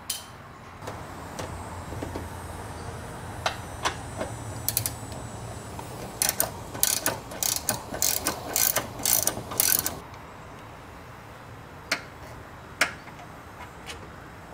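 Hand socket ratchet clicking as a 12 mm socket on extensions backs out an air intake box bolt: scattered clicks, then a quick run of clicks about six to ten seconds in, then two single clicks near the end.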